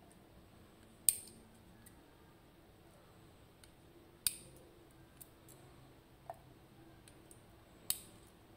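Sharp metallic clicks of small driver pins being taken out of a FAB 3-star pin tumbler lock during disassembly: three louder clicks about three and a half seconds apart, with a few fainter ticks between.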